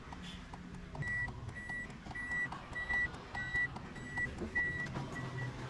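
Car warning buzzer beeping at one steady high pitch, about one and a half beeps a second, starting about a second in, over a low hum.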